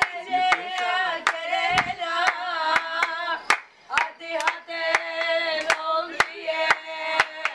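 A woman singing a wavering, ornamented melody to steady hand claps, about two to three claps a second.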